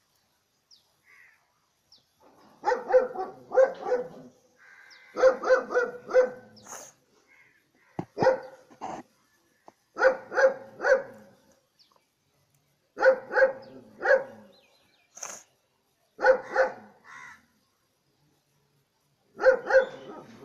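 A dog barking in about seven short runs of two to four fairly high-pitched barks, each run a few seconds after the last.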